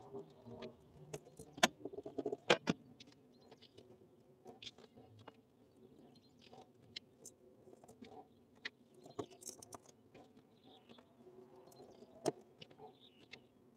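Scattered sharp clicks and taps of hands and wire connectors being worked at the contactor of a Lennox air conditioner's outdoor unit, sped up, over a faint low hum. The loudest clicks come in a cluster about two seconds in, with another near the end.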